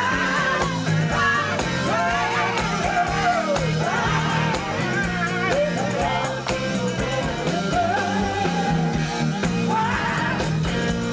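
A live gospel-soul band playing, with singing over a steady bass groove.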